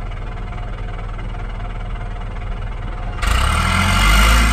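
Kawasaki KLX110 dirt bike's small single-cylinder four-stroke engine running steadily just after being started, then suddenly louder and fuller about three seconds in as the bike moves off.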